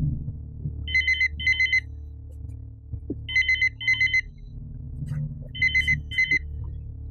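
Telephone ringing in a double-ring pattern: three pairs of short trilling rings, a little over two seconds apart.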